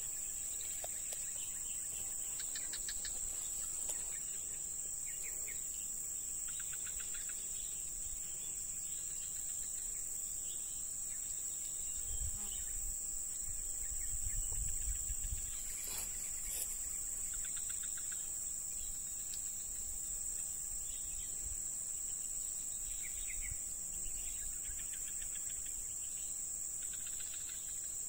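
Steady high-pitched drone of insects, with short rapid trills coming and going over it. A low rumble rises for a few seconds around the middle.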